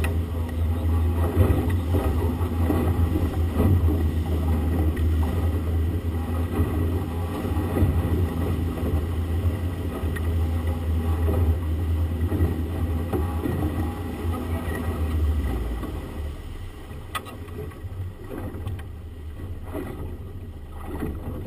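Outboard motor running steadily under way, with the churning wake behind it. About fifteen seconds in the engine is throttled back and its drone drops as the boat slows.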